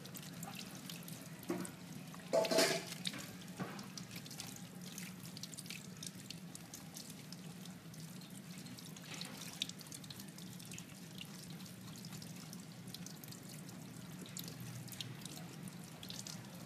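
Kitchen tap running into a stainless steel sink while hands rub and rinse whole squid under the stream, with small splashes and drips throughout. A brief louder noise comes about two and a half seconds in.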